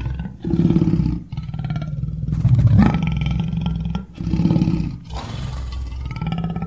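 Lion roaring: a series of about four low roars roughly two seconds apart, the loudest about halfway through.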